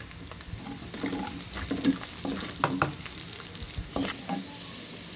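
Onions and ground spices sizzling in hot oil in a pan, with a spatula scraping and tapping against the pan as they are stirred. There are several irregular scrapes, the loudest about two to three seconds in.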